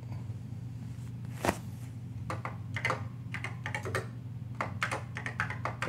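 Typing on an original Macintosh M0110 mechanical keyboard: clusters of quick key clicks starting about two seconds in, after one louder single click about a second and a half in.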